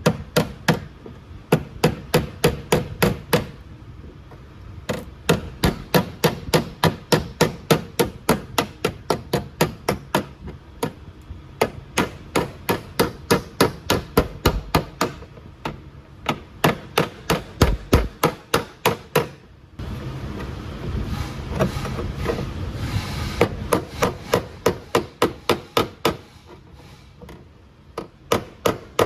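Hammer striking car-body sheet metal in quick, even runs of about three blows a second with short pauses: panel beating during body repair. For several seconds in the latter part, a steady rushing noise runs under the blows.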